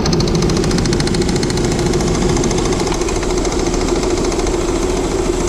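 2000 Saturn L300's 3.0-litre V6 running steadily with its accessory belt on, carrying a steady whining tone and a rapid, even rattle. The noise comes from the power steering pump, whose pulley wobbles on a worn internal bushing: the pump is shot.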